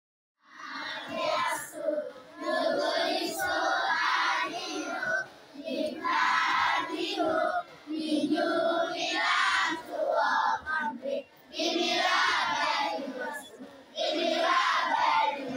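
A large group of children singing together in unison, in phrases broken by short pauses.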